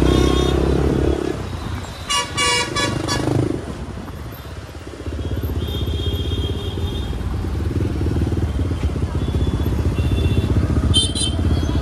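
Motorcycle engine running while riding through traffic, with a vehicle horn honking for about a second and a half about two seconds in and a shorter honk near the end.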